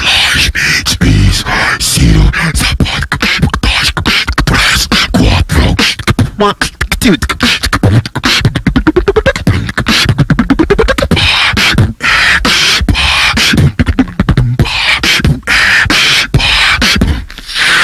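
Hip-hop dance music from a DJ: a dense, chopped-up run of rapid percussive hits, with a series of rising pitch sweeps about nine to eleven seconds in.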